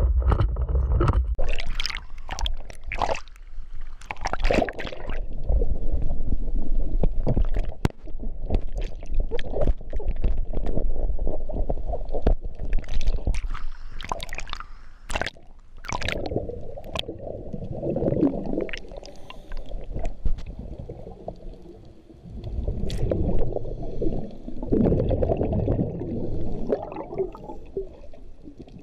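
Water sloshing and gurgling, muffled as through a GoPro's waterproof housing in the water, with many sharp clicks and knocks scattered throughout.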